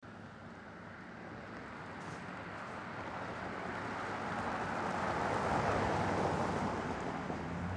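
An SUV driving past on a road: engine and tyre noise swell to their loudest about six seconds in, then start to fade. A low steady hum runs underneath.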